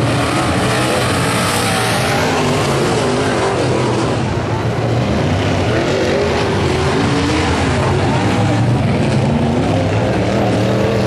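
UMP dirt Modified race cars' V8 engines running loud around the dirt oval, pitch wavering as they come off the throttle at the checkered flag.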